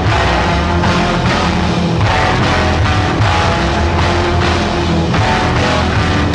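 Garage rock recording slowed far down: loud, guitar-led band music with evenly spaced beats.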